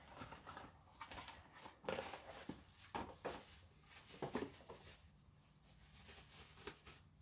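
Quiet handling sounds of a small 12-volt electric fuel pump being picked up and turned over: several light knocks and rustles, spaced irregularly, over a faint steady hum.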